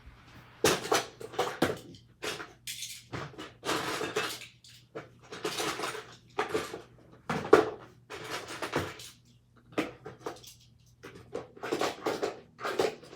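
Hot Wheels die-cast toy cars and plastic track pieces clattering and knocking in a run of short, irregular bursts as the track is tested.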